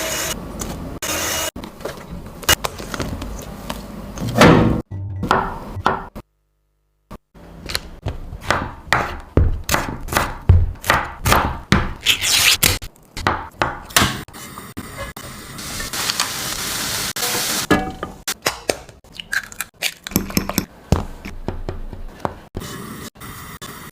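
Kitchen sounds over background music: a run of sharp knocks from a knife chopping on a wooden cutting board, about two a second, then a steady hiss for a few seconds.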